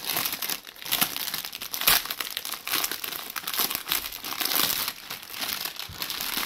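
Clear plastic wrap around a rolled diamond-painting canvas crinkling continuously as hands press it and pull it open, with one sharper crackle about two seconds in.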